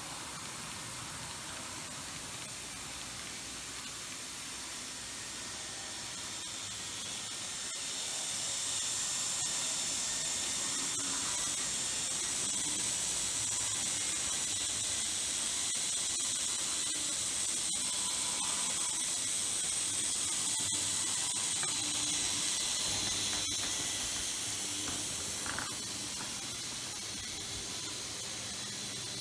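Z-gauge model electric locomotive running along the track, a thin high-pitched whine and hiss from its tiny motor and wheels. It grows louder about a third of the way in as the train passes close, then fades near the end, with a few faint clicks.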